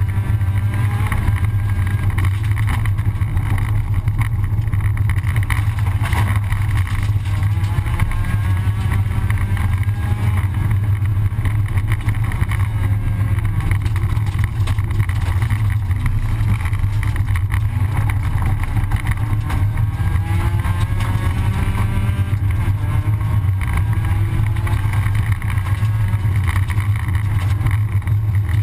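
Rally car engine at high revs heard from inside the cockpit, its pitch climbing and dropping again and again through gear changes, over a loud steady rumble from the gravel road.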